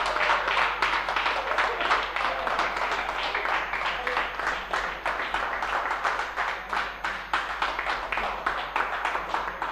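Audience applauding, dense clapping that starts to die away near the end.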